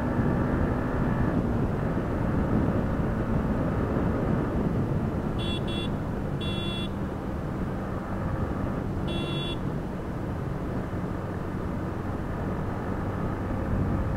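A Yamaha MT-15's 155 cc single-cylinder engine running steadily in top gear at about 75–80 km/h, under heavy wind rush on the microphone. Three short high-pitched beeps sound about five, six and a half, and nine seconds in.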